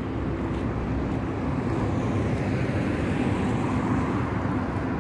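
A car driving past close by, its engine and tyre noise swelling about halfway through, over steady street traffic hum.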